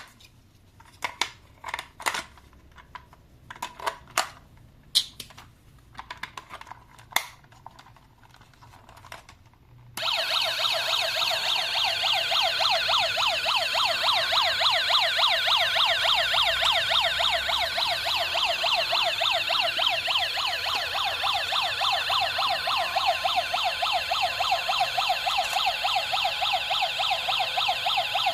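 Scattered plastic clicks and taps, then about ten seconds in a toy emergency vehicle's electronic siren switches on abruptly and plays a loud, fast warble.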